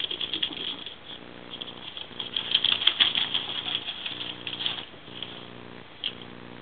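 Ferrets scampering and playing, their claws pattering on a wooden floor and a crinkly foil mat, in uneven bursts of quick clicks and rustling that are loudest about three seconds in. A steady low hum sits underneath.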